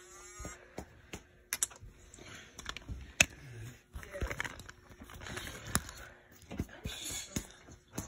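Scattered clicks and taps of fingers handling a Squeakee balloon-dog toy and its plastic balloon accessory close to the microphone, irregular and a few per second at most.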